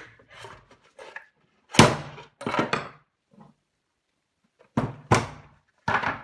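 Short knocks and clatter of a Clatronic KM 2718 stand mixer's parts and tools being handled while screws are taken out of its housing: a handful of separate hard taps, about a second apart.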